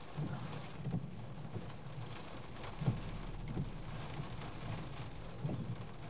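Rain falling steadily on the roof of a car, heard from inside the cabin, with a few irregular low thumps.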